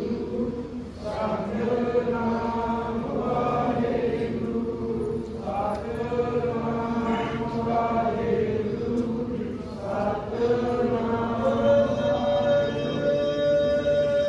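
Slow devotional chant sung in long held phrases. A single long steady note comes in about three-quarters of the way through.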